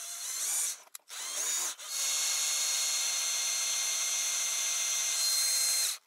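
Cordless drill spinning a small drill-driven water pump: two short bursts in the first two seconds, then a steady whine for about four seconds that cuts off suddenly. The pump is not lifting water up the hose, which is too short to reach.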